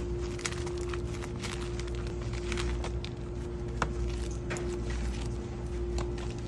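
Sushi bar background: a steady hum and low rumble with scattered light clicks and knocks.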